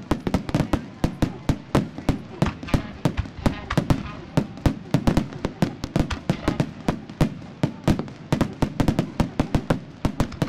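Fireworks display: aerial shells bursting in a rapid, irregular string of sharp bangs, several a second and varying in loudness.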